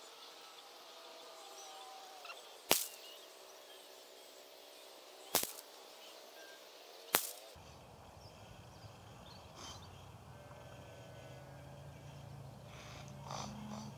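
Three rifle shots from a CZ 455 in .17 HMR, single sharp cracks about two and a half and then two seconds apart.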